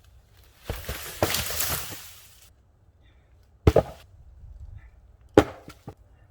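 Dead wood crackling and snapping for about two seconds, then two sharp wooden knocks with a few lighter clicks after the second.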